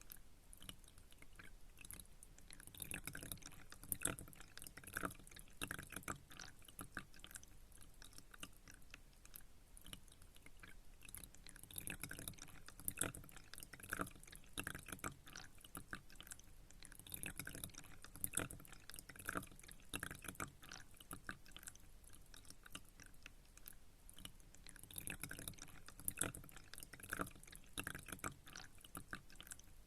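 Pond water trickling and dripping faintly: irregular small drips and splashes that come in clusters every several seconds.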